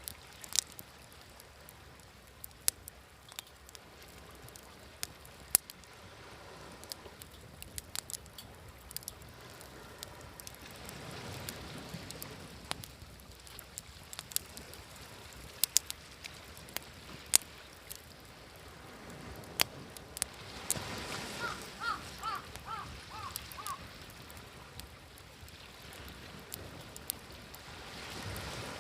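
Campfire crackling with many sharp, irregular pops over the wash of sea waves, which swell about eleven seconds in, again around twenty seconds, and near the end. A brief run of about six short high chirps comes around twenty-one seconds in.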